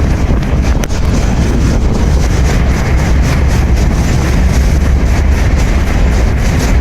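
Loud wind buffeting the microphone over the steady rumble of a moving freight train, heard while riding on it.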